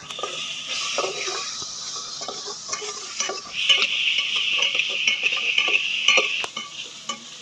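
Long steel spoon scraping and stirring thick onion-tomato masala and green chillies in an aluminium pot over a wood fire, in many short strokes. A steady hiss of the masala sizzling comes up about halfway through and stops about a second before the end.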